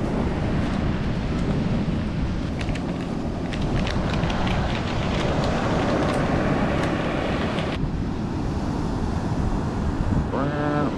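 Wind blowing across the microphone over breaking surf, with a few light ticks, and a short pitched sound near the end.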